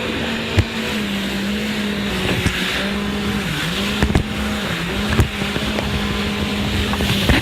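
Jet ski engine running at a steady speed, its pitch dipping briefly a couple of times midway, over a hiss of wind and spray, with several sharp knocks as the hull hits the waves.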